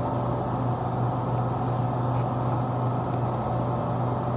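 Compressor and condenser fan of a True refrigeration unit running steadily: a constant low hum with even fan air noise over it.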